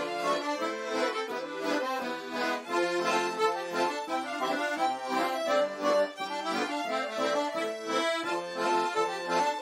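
Diatonic button-accordion music playing a scottish, a traditional dance tune, with several melody and accompaniment lines.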